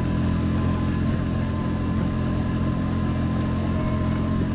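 ATV engine running at a steady speed, a constant low hum with no revving up or down.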